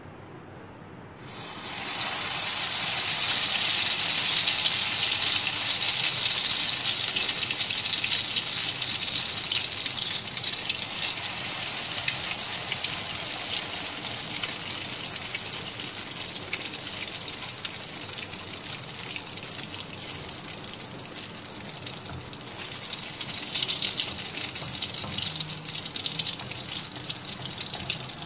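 Egg-and-cocoa-soaked bread slices sizzling in hot desi ghee on a flat iron tawa. The sizzle starts suddenly about a second and a half in as the bread goes into the fat, then slowly dies down, swelling again for a couple of seconds near the end.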